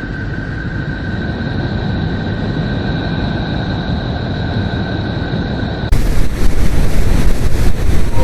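Space data converted into sound: a steady, deep noise with two faint steady high tones over it, cutting abruptly about six seconds in to a louder, harsher noise that spreads further up in pitch.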